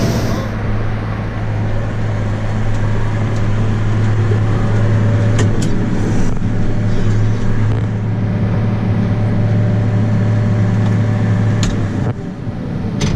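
Diesel engine of harvest machinery running steadily under load, a constant low hum with a few sharp clicks. The hum changes pitch about twelve seconds in.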